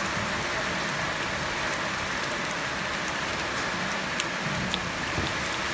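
Batter balls sizzling in oil in a cast-iron takoyaki pan over a gas burner: a steady hiss, with a couple of sharp pops about four seconds in as more oil is squeezed into the hot pan.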